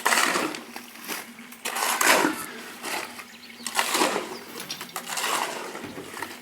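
Rhythmic scraping strokes, about one every two seconds, of a hand tool working through a wet cement mix as water is being added.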